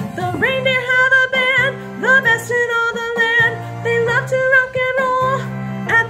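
A song from a children's Christmas musical: a sung melody over an instrumental backing.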